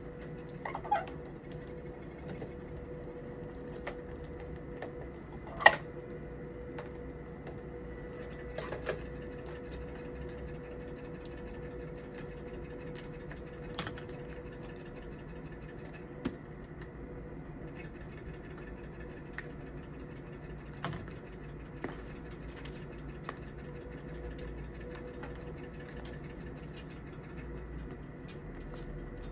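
Steady electrical hum with a faint high tone, broken by scattered sharp clicks and taps; the loudest click comes about six seconds in.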